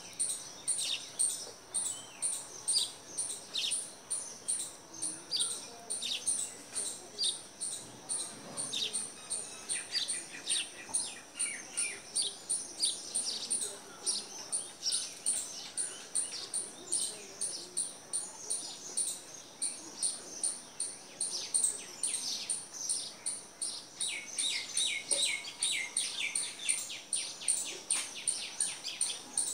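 Birds chirping: a steady string of short high chirps about two a second, with livelier flurries of lower chirps about ten seconds in and again near the end.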